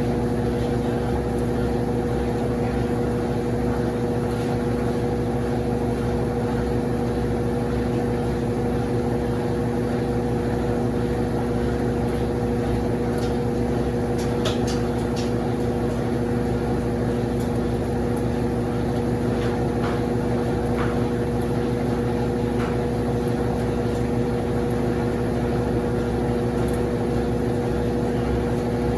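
Consul CWS12 12 kg washing machine running, a steady motor hum with a low rumble and no pauses.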